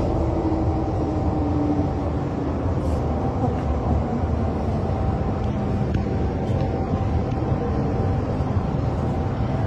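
Metro train running, heard from inside the carriage: a steady low rumble with a thin steady whine above it.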